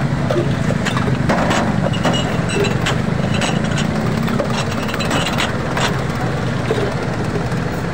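Steady low hum of an idling engine, with scattered sharp clinks of steel mugs knocking against a steel pot of juice and ice as it is ladled.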